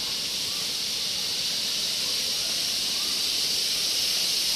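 A steady high-pitched insect drone, typical of a tropical cicada chorus, growing slightly louder, with a few faint chirps.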